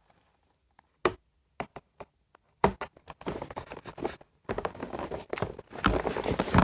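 Hands working a doll out of its box packaging: a few sharp taps, then about three seconds in a run of crinkling and rustling with clicks.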